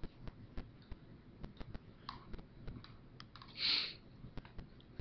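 Faint, irregular small clicks scattered throughout, with a short breathy hiss about three and a half seconds in.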